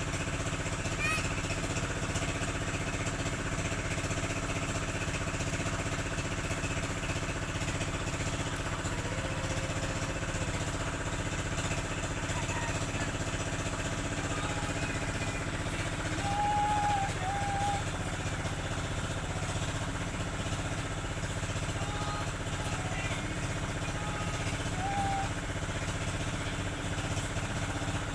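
Boat engine running steadily, an even drone that holds at one speed throughout.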